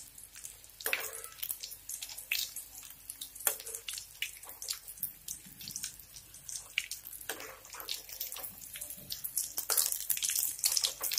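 Breaded egg fingers deep-frying in hot oil in a kadai: the oil sizzles with frequent sharp crackles and pops. A perforated steel skimmer stirs and turns them, scraping and clinking in the pan.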